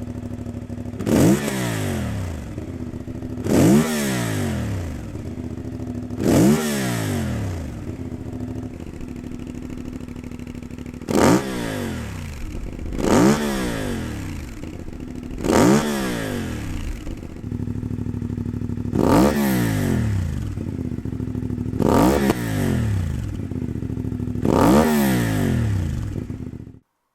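CFMOTO 450MT parallel-twin engine idling between quick throttle blips to 8,000–9,000 RPM, each a fast rise and fall in pitch. There are nine blips in three groups of three, one group each on the stock slip-on, a budget aftermarket slip-on and a premium Sharon slip-on exhaust.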